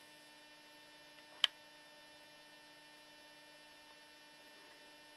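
Faint, steady electrical hum, with a single sharp click about one and a half seconds in.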